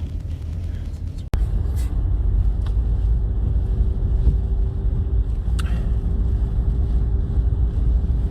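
Storm-force wind buffeting the microphone, a loud, steady low rumble, broken by a short cut about a second in. After the cut it comes back louder, with a faint steady hum underneath.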